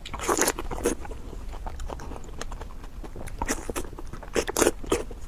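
Close-miked eating by hand: crunchy bites and chewing. The loudest bites come about half a second in and again around three and a half and four and a half seconds in, with small mouth clicks between them.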